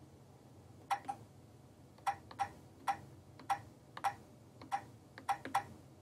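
Stylus tapping keys on the touchscreen keyboard of a Keyline electronic key machine's console while a password is typed: about ten short clicks at an uneven pace, starting about a second in.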